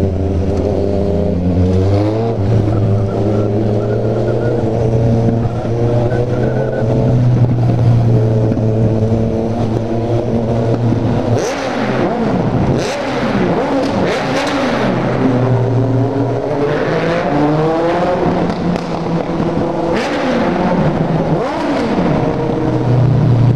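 Inline-four motorcycle engines with a 4-into-1 exhaust, running steadily and then revving hard with repeated rises and falls in pitch and sharp exhaust cracks, echoing in a road tunnel.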